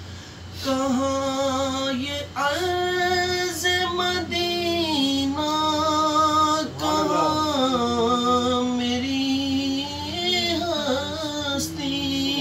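A man's voice singing a naat (Urdu devotional poem) with no instruments, holding long notes that bend and break into ornamented runs.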